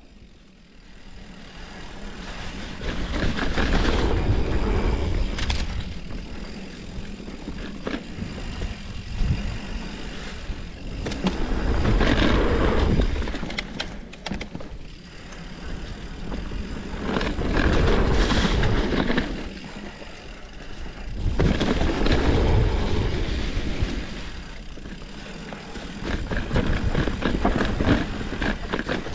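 Mountain bike rolling fast down a dirt trail strewn with leaves: tyre noise on dirt and leaves with wind buffeting the microphone, swelling and easing as the bike speeds up and slows through the turns, with occasional clicks and rattles from the bike.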